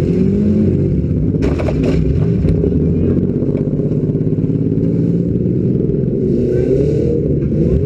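Demolition derby car's engine running loud, its pitch rising and falling as it revs up and down, heard close from above the hood. A short clatter about a second and a half in.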